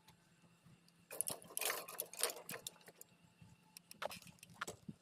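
Loose metal jangling and rattling in a few bursts from about a second in, then scattered clicks near the end: scrap metal shifting in the load of a bike.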